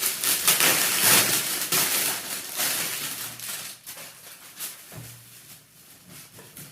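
Packaging rustling and crinkling as a shirt is unwrapped and shaken out, busiest in the first few seconds, then dying down to quieter handling.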